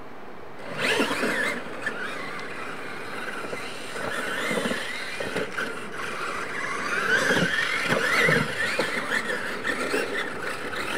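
Losi LMT radio-control monster trucks racing on dirt, their electric motors and geared drivetrains whining in pitch that rises and falls with the throttle, starting about a second in.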